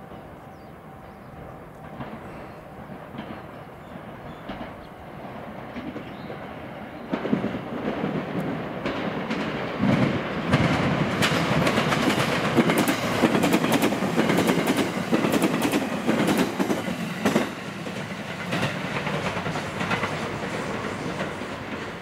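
JR West 227 series electric train running past close by, its wheels clattering over rail joints and points. The sound builds from faint to loud about a third of the way in, stays loud with rapid clacks for several seconds, then eases off.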